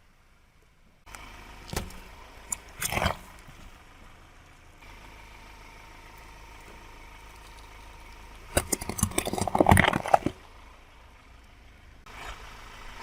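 A car tyre rolling onto and crushing a brittle object: a few sharp cracks, then a dense burst of crackling and snapping lasting about two seconds, with a faint steady engine hum underneath.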